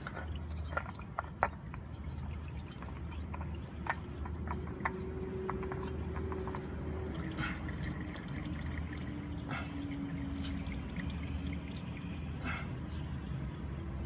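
Used engine oil dripping into a catch pan, a scatter of small sharp ticks, over a steady low hum.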